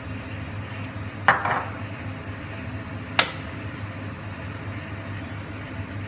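Two sharp knocks about two seconds apart as glass spice jars and their plastic lids are handled and set down on a kitchen worktop, over a steady low hum.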